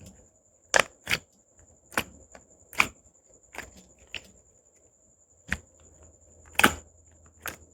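Glossy slime being pressed and poked, with trapped air bubbles popping sharply about nine times at irregular intervals; the loudest pops come about a second in and near the end.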